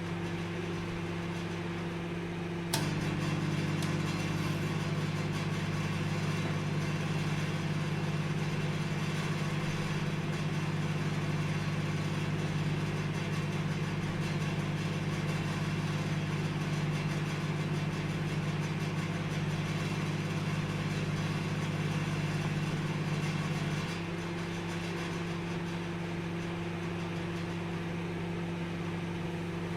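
Microwave oven running with a steady hum. About three seconds in there is a click and the hum becomes louder and heavier, then about 24 seconds in it drops back to the lighter hum.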